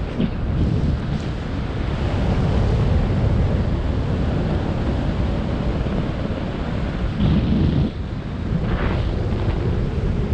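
Wind buffeting a camera's microphone in flight under a parachute canopy: a steady low rumbling rush, with a stronger gust about seven seconds in.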